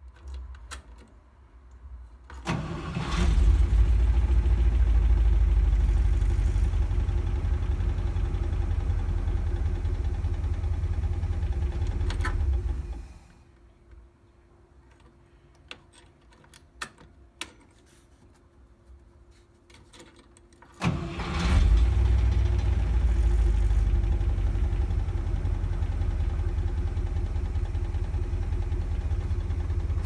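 International Harvester V8 engine of a 1971 Blue Bird bus turning over on its starter in two long runs of about ten seconds each, with a quiet pause of a few small clicks between them. The engine has 0 PSI compression on cylinder 8, which the owner takes for a valve problem.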